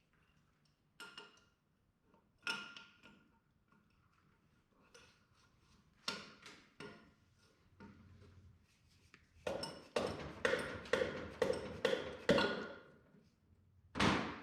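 Small metal parts of an IH 140 touch control unit being handled during teardown: scattered clinks and knocks, some with a brief metallic ring. Partway through comes a quick run of light taps lasting about three seconds, and one last knock near the end.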